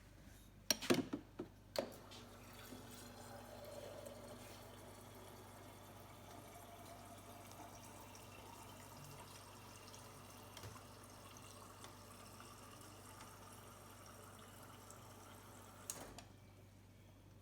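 Refrigerator door water dispenser running into a pitcher: a few clicks about a second in, then a steady flow of water for about fourteen seconds, ending with a click.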